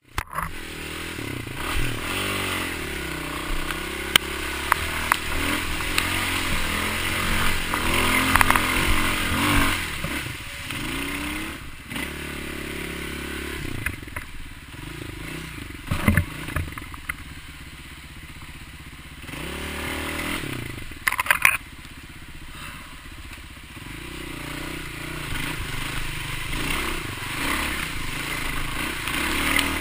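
Dirt bike engine running under way, revving up and down as the throttle is worked, with a few sharp knocks about halfway and again about two-thirds through.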